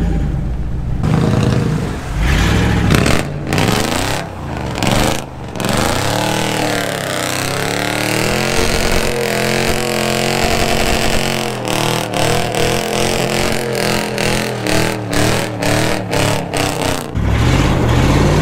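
Pickup truck engine revving and accelerating, its pitch rising and falling repeatedly, with a run of sharp crackles in the second half.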